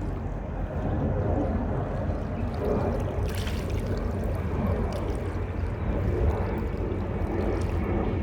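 Tugboat engine rumbling steadily while towing a capsized boat, with water washing, and a brief hiss about three seconds in.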